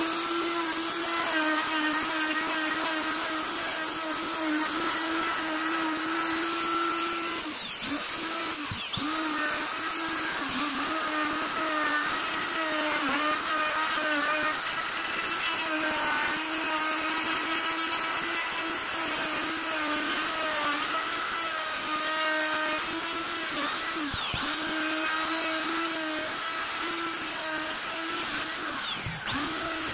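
Endico electric plunge router running at high speed while routing a relief pattern into a wooden panel: a steady high whine that sags briefly a few times as the cut goes on.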